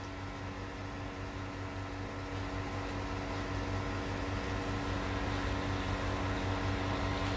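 Soft, steady sizzle of sliced beetroot and eggplant frying in a stainless steel pan, over a constant low electrical hum, growing slightly louder.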